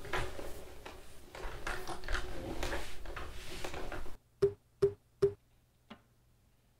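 Rustling and clicking of a Comfyer Swift cordless spin mop's plastic body and handle being handled and moved. About four seconds in, it cuts to near quiet with a low hum, and three sharp taps come in quick even succession, then a fainter one.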